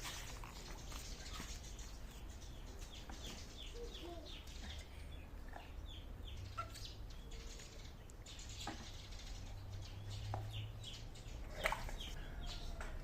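Small birds chirping busily, many short down-slurred calls overlapping, with a few short sharp sounds among them, the loudest about three-quarters of the way through.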